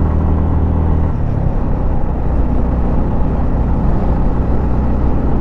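Motorcycle engine running steadily while riding, a low hum under a steady rush of air noise; the engine note drops about a second in.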